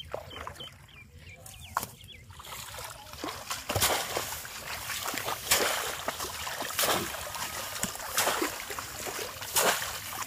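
Water splashing in a flooded rice paddy as a bamboo polo fish trap is brought down into the shallow water. The splashes come about every second and a half through the second half.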